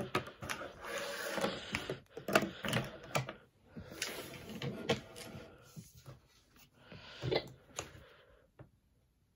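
Irregular clicks, taps and rubbing from markers and other objects being handled on a desk close to the microphone, fading out near the end.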